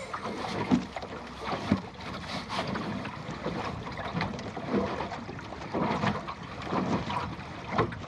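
Water splashing and slapping irregularly against the plywood hull of a Goat Island sailing skiff under way, with wind buffeting the microphone.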